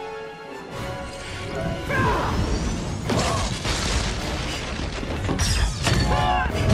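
Film battle-scene soundtrack: dramatic music with held chords at first, then crashes, shattering impacts and sweeping blast effects piling up and getting louder.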